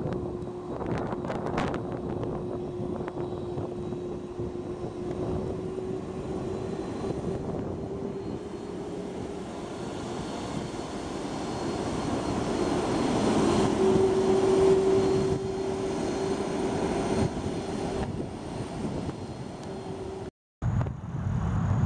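Jet airliner engines running with a steady whine over a rushing hiss. The whine creeps slightly higher in pitch and grows louder about halfway through. Wind buffets the microphone in the first couple of seconds.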